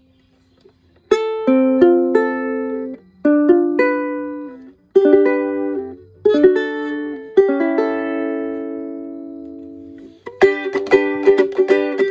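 1951 Gibson TU tenor ukulele being strummed: a few separate chords, one left to ring and die away for a couple of seconds, then brisk, rhythmic strumming near the end.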